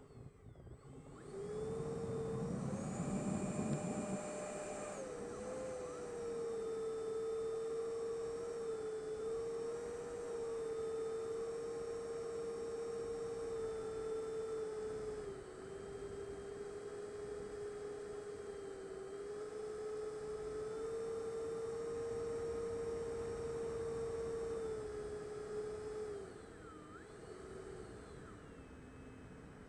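Electric motor of an RC model plane, heard from its onboard camera: a steady whine that climbs in pitch as the throttle opens for takeoff about two seconds in, with a low rumble during the ground run. It then settles a little lower for cruising flight, wavering slightly with throttle, and drops in level near the end.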